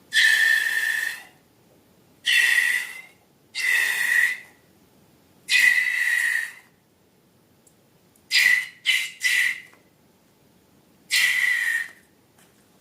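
Air squealing out of a rubber balloon's stretched neck in a series of hissing, whistling bursts: four of about a second each, three quick short ones, then one more.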